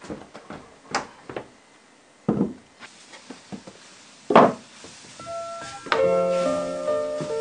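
A few light wooden knocks, then a wooden lid is set down with a sharp thunk on a large earthenware jar about four seconds in. Soft piano music comes in near the end.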